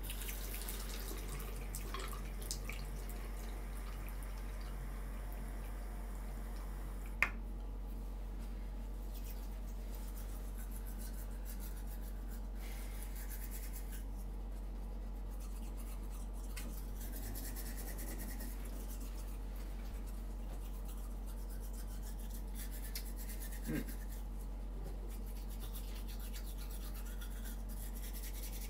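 Manual toothbrush scrubbing teeth in quick back-and-forth strokes, over a steady low hum, with a sharp click about seven seconds in.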